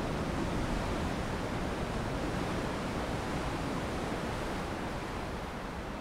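Ocean surf: a steady rushing wash of breaking waves with no distinct crashes.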